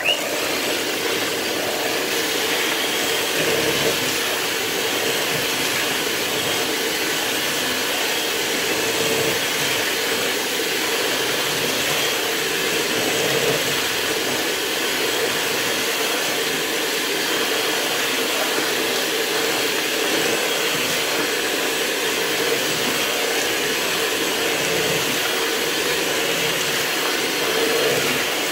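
Electric hand mixer switched on at a low setting, its motor running with a steady whirring hum as the beaters cream butter and caster sugar in a bowl.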